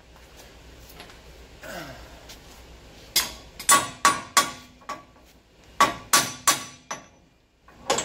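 Hand hammer striking steel torsion bar hardware under a pickup truck, working the torsion bar into position: a run of about five sharp blows starting about three seconds in, then three more a second later, each with a short metallic ring.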